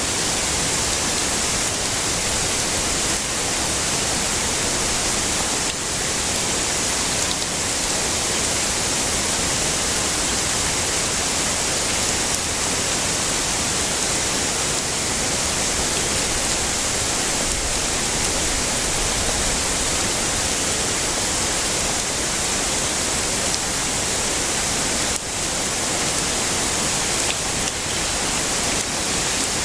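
Heavy rain falling in an even, steady hiss.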